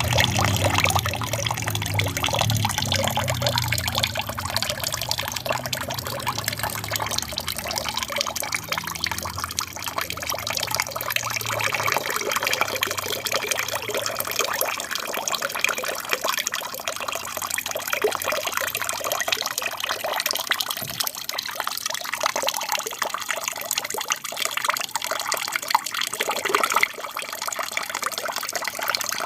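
Water from an aquarium's built-in waterfall falling and splashing steadily into the tank, with some low rumble in the first part that fades out.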